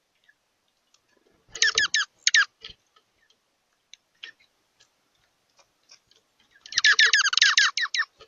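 Bird calls: two bursts of rapid, repeated high chattering notes, one about a second and a half in and a longer one near the end, with faint scattered clicks between.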